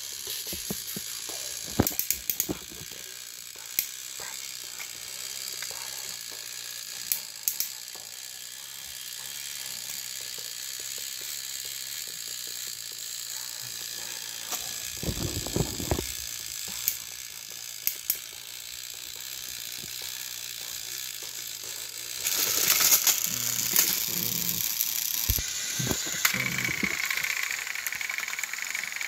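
Battery-powered Thomas & Friends toy engines running their motors against each other on plastic track: a steady high whir with clicks and rattles of plastic wheels and couplings. It gets louder about three-quarters of the way through.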